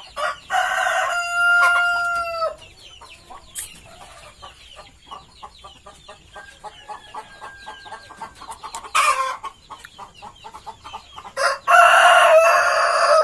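A flock of ayam kampung (Indonesian native chickens): a rooster crows loudly in the first seconds and again near the end, with a short loud call partway through, and hens cluck throughout.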